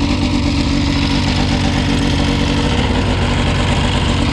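Two-stroke snowmobile engine idling steadily with the hood off, being run to warm up.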